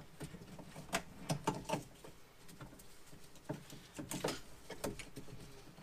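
Light scattered clicks, taps and rustles from gloved hands handling the wiring harness and plastic connectors inside a stripped car door, while the window regulator motor is being plugged in. The sharpest click comes a little past four seconds in.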